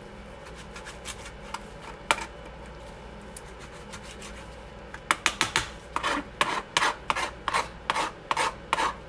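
Knife trimming a raw turkey neck. It is mostly quiet with a couple of small clicks, then about halfway through comes a quick run of short scraping cuts, several a second.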